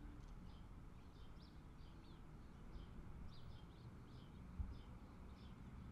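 Faint birds chirping: short, high chirps a few times a second over a low rumbling background, as a low ringing tone dies away at the start. A single soft low thump comes about four and a half seconds in.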